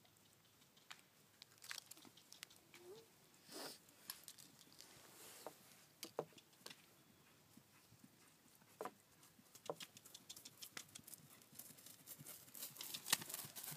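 Near silence broken by scattered faint thuds, then a quickening run of horse hoofbeats on grass turf near the end as a cantering horse comes close.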